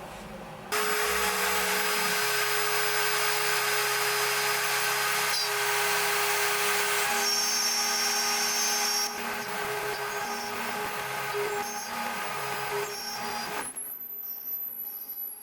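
CNC router spindle milling wood: a steady spindle whine over cutting noise, with the stepper motors humming at pitches that shift in steps as the axes move. The cutting gets quieter about nine seconds in and stops abruptly near the end.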